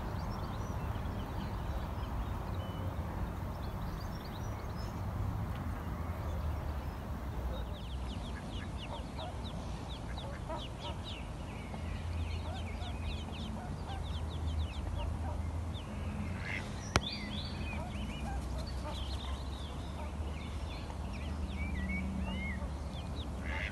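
Ducklings peeping in quick, high-pitched runs of calls from about a third of the way in, over a steady low rumble, with one sharp click about two-thirds of the way through.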